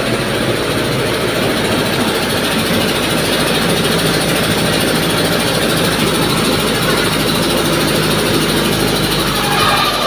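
Small rice mill running under load: a Mitsubishi 4DR5 four-cylinder diesel driving a rubber-roll huller, bucket elevator and shaking screen tray, making a loud, steady mechanical noise.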